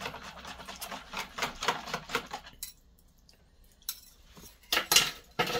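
Metal wire whisk beating a liquid egg mixture in a plastic bowl, quick rattling strokes that stop about two and a half seconds in; after a short pause, a metal ladle clinks a few times against the bowl near the end.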